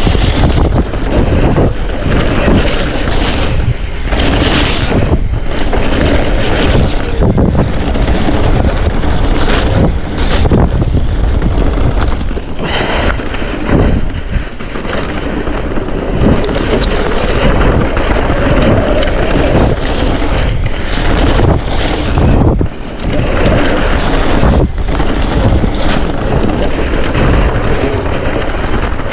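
Loud wind buffeting the microphone over the tyre noise and rattling of a mountain bike riding a rough, wet trail, with frequent knocks from bumps.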